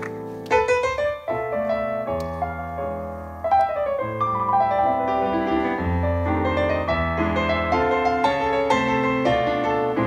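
Solo piano playing the intro to a live bossa nova song: melody notes over held chords, starting about half a second in.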